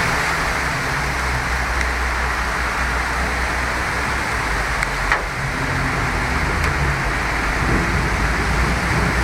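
Heavy downpour and floodwater rushing through a street: a steady, loud hiss with a low rumble underneath.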